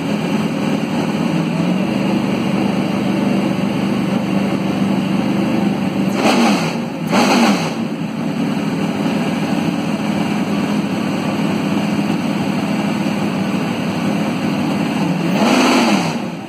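Toyota Camry NASCAR Cup car's V8 engine idling steadily and loudly, blipped three times: twice in quick succession about midway and once more near the end, each rev rising and dropping back to idle.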